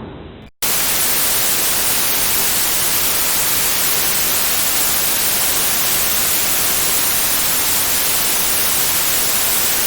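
The fading tail of an explosion dies away, there is a brief dropout, then steady broadcast static hiss starts suddenly and runs evenly: dead-air noise of a station knocked off the air.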